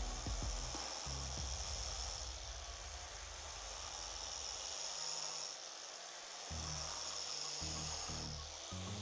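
Angle grinder with a diamond cutting disc cutting in three bursts of about two seconds each. The disc is loaded with residue and starts to jump a little in the cut.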